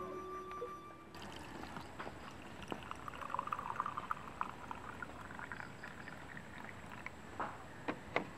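Tea pouring from a coconut-shell teapot's spout into a coconut-shell cup, a light trickling splash that peaks around three to four seconds in. A few light knocks follow near the end.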